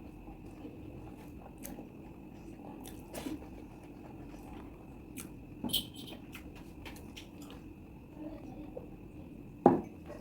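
Close-up chewing and mouth sounds of a person eating chicken curry with rice, with occasional sharp clicks and one loud click near the end.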